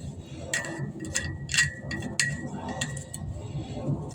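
Steel parts clinking and ringing as guide bushings are fitted onto a KAMAZ truck's wheel studs: a series of sharp metallic clinks, several to the second.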